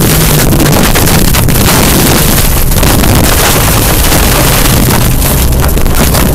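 Rally car at speed on a loose gravel stage, heard from onboard: the engine working hard with its note rising and falling, over a constant rush of gravel under the tyres and wind on the microphone.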